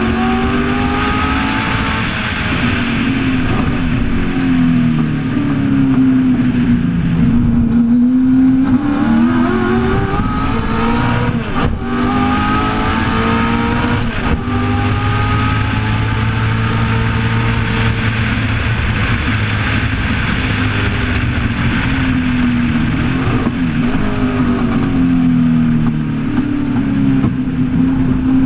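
1965 Shelby Cobra's Ford V8 at racing speed, heard from the open cockpit. The engine note climbs under acceleration, drops at gear changes and lifts, and climbs again several times, over a steady rush of wind and road noise.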